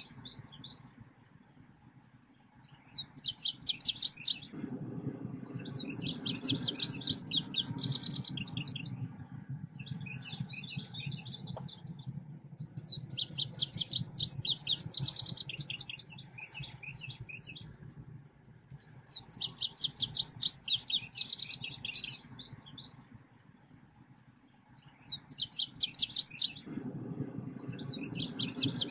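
Bird calls of the kind sold as selendang biru lure song, played as a recording. Bursts of rapid, high chirping notes each last a few seconds and repeat after short pauses, over a low rumbling background in some stretches.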